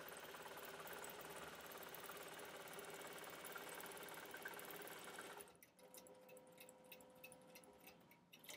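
A computerized longarm quilting machine runs steadily as it stitches a circle. About five seconds in, the stitching noise stops, leaving light clicks and a faint hum, with a sharper click near the end.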